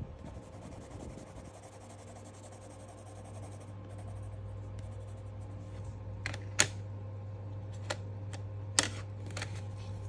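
Coloured pencil scratching faintly on sketchbook paper, then several sharp clicks and taps in the second half as the pencil and sketchbook are handled, over a steady low hum.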